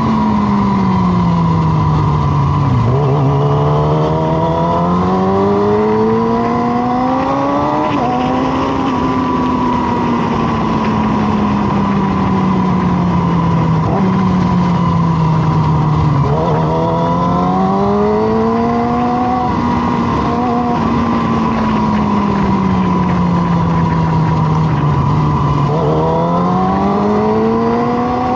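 Motorcycle engines running at road speed, with wind and road noise; three times an engine revs up in a rising whine as it accelerates.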